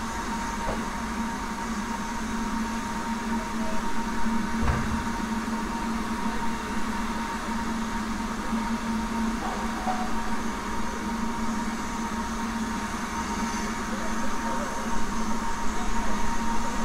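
Steady noise and hum inside a steam-hauled heritage railway carriage, with a single knock about five seconds in.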